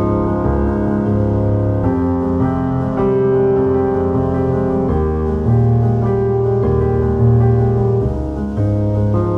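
Background music: slow held chords that change about every second.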